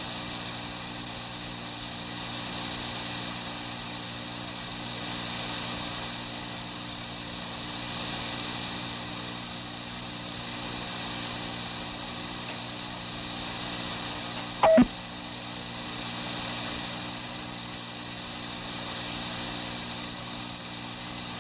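Steady hiss and low hum of a 1983 police radio dispatch tape recording during a gap between transmissions, with one short loud blip about fifteen seconds in.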